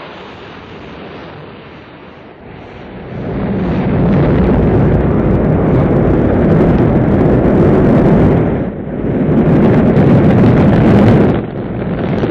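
A loud rumbling roar that swells about three seconds in and dips briefly twice near the end.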